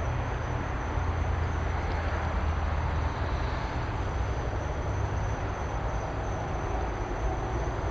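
Steady night chorus of crickets, a constant high trilling, over a steady low rumble that swells slightly about a second in and eases after about three and a half seconds.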